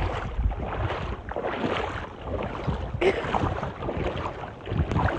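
Water splashing and rushing as people wade through a river, in surges about every second, with wind on the microphone.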